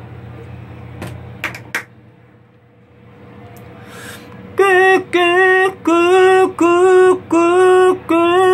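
A singer's voice, loud through a karaoke microphone, repeating one short sung syllable on the same mid-high note about eight times in a row, starting about four and a half seconds in. It is a drill on the tiring mid-high note of the song. Before it come a few clicks of handling.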